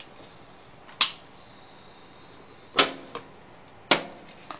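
Three sharp, loud clacks of hard objects striking, each short with a brief ring: one about a second in, one just under three seconds in and one near four seconds.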